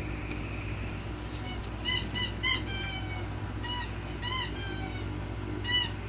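Squeaker sounding in short, high squeaks that rise and fall in pitch: three in quick succession about two seconds in, two more around four seconds, and one near the end.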